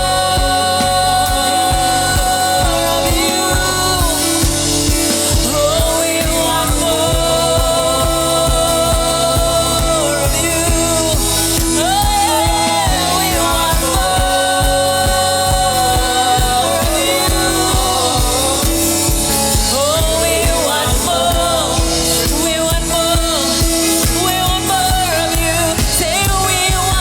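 Worship song with a singer holding long, sliding notes over a band and a steady beat.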